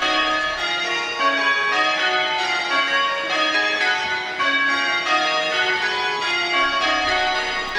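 Church bells ringing changes: a continuous run of bell strokes at different pitches, struck one after another in quick succession.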